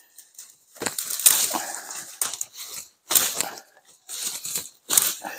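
Curved machete chopping through katuk stems, with the leaves rustling, in several separate bursts of hacking.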